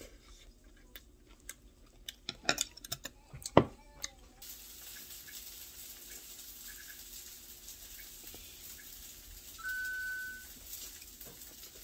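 Kitchen clinks and knocks, one louder knock about three and a half seconds in, then a kitchen tap turned on, water running steadily into the sink. A short electronic beep sounds near the end.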